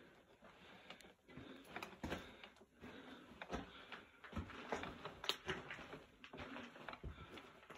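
Irregular crunching footsteps and scuffs on loose rock in a mine tunnel, with clicks and rustling from the camera being handled.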